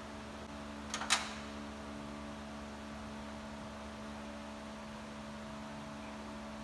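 Steady hum of a garage holding several fixed tones. About a second in it is broken by a brief clatter of three quick clicks.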